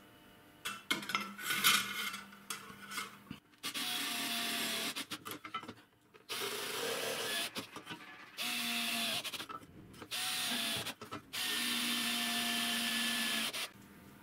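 Cordless drill drilling through thin sheet metal in about five short runs of a second or two each, its motor tone dipping slightly as each run stops. The first few seconds hold irregular knocks and scraping as the metal sheet is handled.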